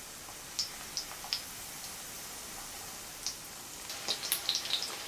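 Zucchini fritters frying in vegetable oil over medium heat: a steady sizzle with scattered sharp crackles, which come thick and fast about four seconds in.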